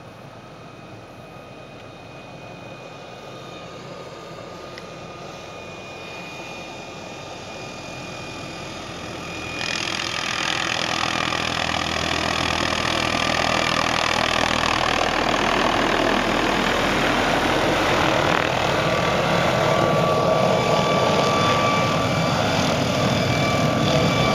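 Hughes 500 helicopter approaching and coming in to land close by, its turbine whine and rotor noise growing steadily louder. There is a sudden jump in loudness about ten seconds in as it comes up close overhead.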